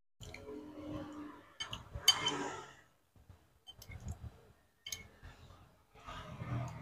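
Metal spoon clinking and scraping against a ceramic bowl of soto and rice, several sharp clinks, with chewing and mouth noises of eating in between.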